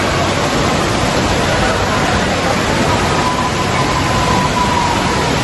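Steady rushing noise of an indoor water park: water pouring through the slides and into the pools, echoing in the large hall.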